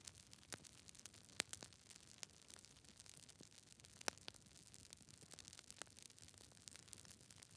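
Wood fire crackling faintly: a soft hiss under frequent small snaps and pops, with sharper pops about a second and a half in and about four seconds in.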